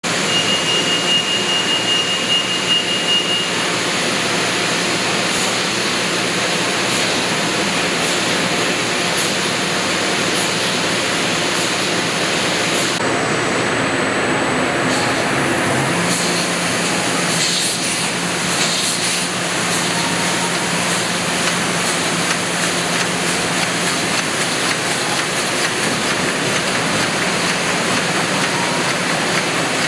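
Heidelberg Speedmaster XL 75 Anicolor sheetfed offset press running: a loud, steady mechanical rush. A faint high whine sounds over it for the first few seconds, and a low hum joins about halfway through.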